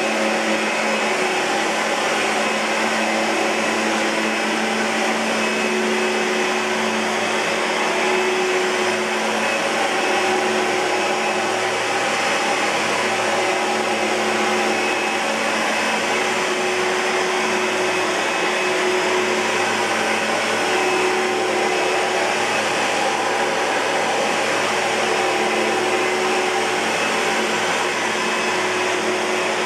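2012 Oreck Magnesium LW100 lightweight bagged upright vacuum cleaner running steadily: a constant motor whine over rushing airflow.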